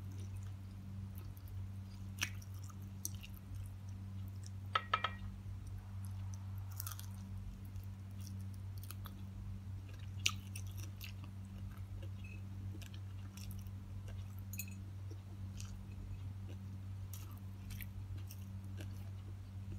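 Close-up chewing and mouth sounds of someone eating fried tilapia and rice with her fingers, with scattered small clicks and a few sharper ones about five and ten seconds in. A steady low hum runs underneath.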